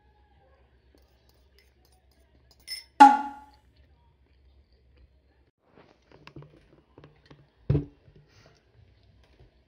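Near silence, then one sharp percussion hit about three seconds in that rings briefly, an edited-in sound effect. Scattered light taps follow, with a heavier thump about three-quarters of the way through.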